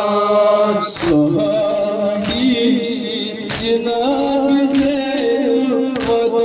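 Men's voices chanting a mourning lament (noha) in long held notes, with sharp slaps of hands striking chests (matam) about once a second.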